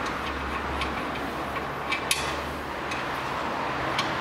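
A few scattered, sharp light clicks and taps of tools and nuts being handled, over a steady low hum and hiss of background noise.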